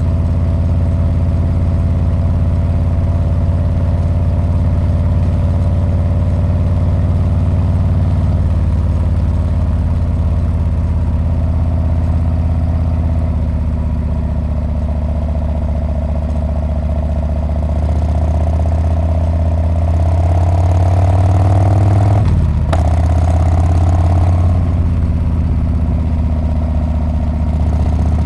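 Harley-Davidson Street Bob's V-twin engine and muffler running steadily under way. About two-thirds of the way in, the note climbs and grows louder as the engine speeds up. It breaks off briefly, then carries on at a lower pitch.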